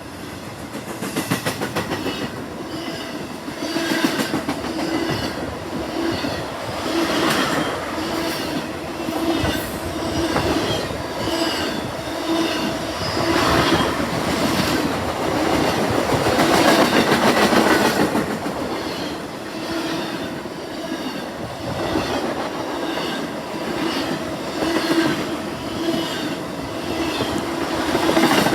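Freight train rolling along the track, its wheels clicking steadily over the rail joints under a continuous rumble.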